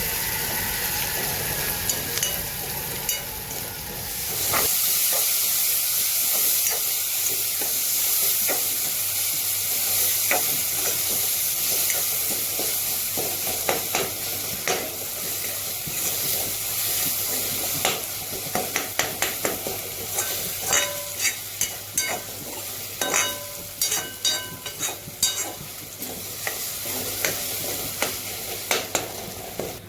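Food sizzling as it fries in a pan, with a spatula stirring it. The sizzle grows louder a few seconds in, and in the second half the spatula clicks and scrapes against the pan many times.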